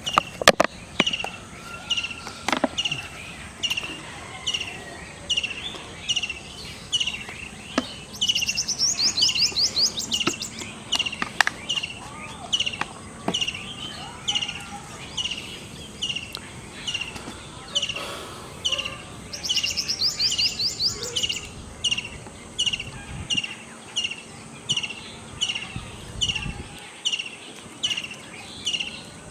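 A bird repeating a short, high chirp at an even pace, about one and a half a second, twice breaking into a fast, high trill lasting a couple of seconds, about a third and two-thirds of the way in.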